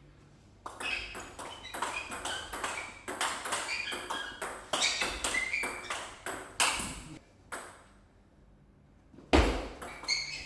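Table tennis rally: the celluloid ball clicks off bats and table in a quick, even run of strokes for about seven seconds, then stops. Near the end there is one louder thump.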